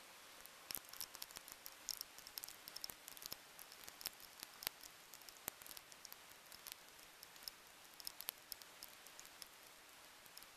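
Raindrops striking the camera: irregular sharp ticks, several a second at the busiest, over a faint steady hiss.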